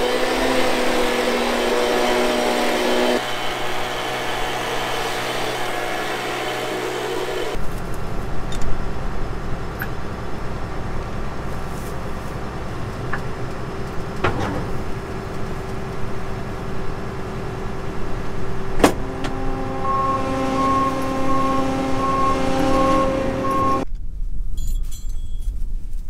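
Compressed air hissing as dust is blown out of a combine harvester, over a steady engine hum. After several seconds the hiss stops and an engine keeps running, with a few sharp knocks, and a steadier engine note near the end.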